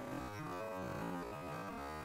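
Instrumental background music, sustained notes changing in pitch.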